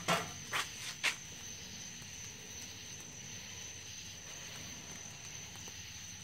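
A steady, high-pitched chorus of night insects at one even pitch, with three short knocks about half a second apart in the first second.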